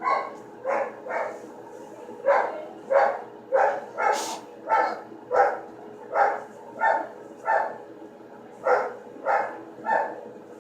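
A dog barking over and over, about two barks a second in runs, with a short break near the end. A steady faint hum runs underneath.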